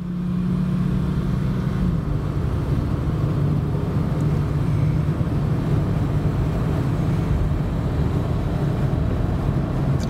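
1979 Ford Thunderbird's V8 and tyre noise heard from inside the cabin while cruising on a highway: a steady drone that drops slightly in pitch about two seconds in, then holds.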